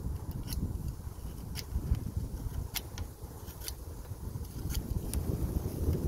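Leatherman Surge's 420HC plain-edge main blade whittling a dry stick: short, crisp, irregular snicks as shavings come off. Wind buffets the microphone with a steady low rumble, the loudest sound.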